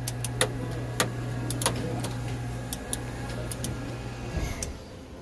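Sharp, irregular clicks of a jet cockpit's switches and controls being flicked by a small child's hand, over a steady low hum that stops about four seconds in.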